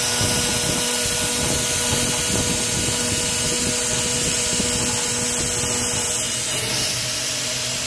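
CNC router spindle milling a slot in 16 mm 5083 aluminium alloy plate with an 8 mm two-flute end mill: a steady, loud cutting noise with a humming tone and a high whine, growing slightly louder near the end.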